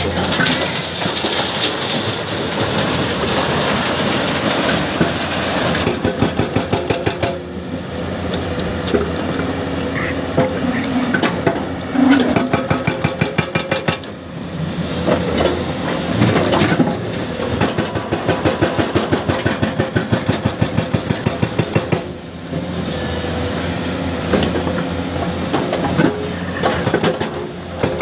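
Hydraulic breaker on a Komatsu PC210 excavator hammering rock in several bursts of rapid, evenly spaced blows. The excavator's diesel engine runs steadily between the bursts.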